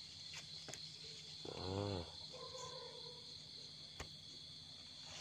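Steady chorus of night insects, a continuous high trill. About a second and a half in, a man makes a brief wordless voiced sound, and a faint click comes near the end.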